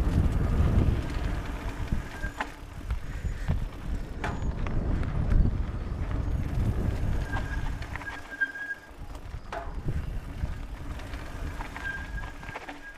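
Mountain bike ridden fast down a dirt singletrack, heard from a bike-mounted camera: a steady low rumble of tyres on dirt and wind on the microphone, with sharp clicks and rattles from the bike now and then. A few short thin squeaks come through around the middle and near the end.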